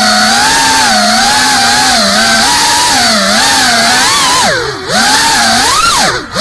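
FPV quadcopter's brushless motors and propellers buzzing, the pitch rising and falling with the throttle. Twice, about four and a half seconds in and again near the end, the throttle is chopped: the buzz drops and fades briefly, then climbs sharply as the power comes back in.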